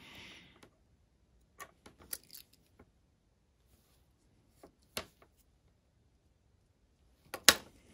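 Scattered light clicks and taps of a soldering iron, a plastic solder dispenser tube and a small IC socket being handled on a workbench during hand soldering, with a brief soft hiss at the start and the loudest tap near the end.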